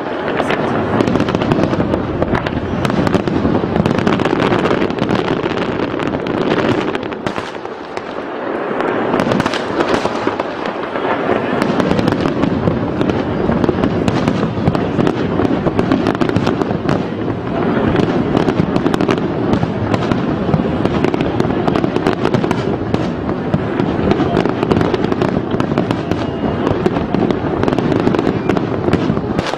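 Aerial fireworks display: shells bursting in a dense, continuous barrage of bangs and crackling, easing briefly about eight seconds in.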